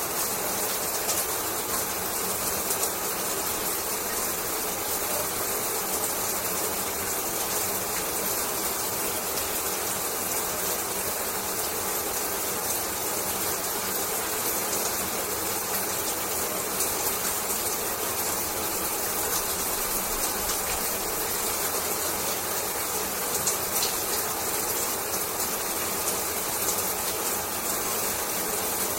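Shower water running steadily, a constant even spray with no change.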